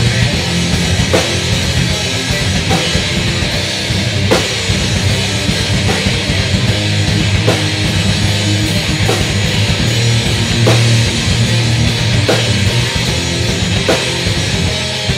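Heavy metal recording: loud, distorted electric guitars over a fast-played drum kit, with a dense, unbroken wall of sound.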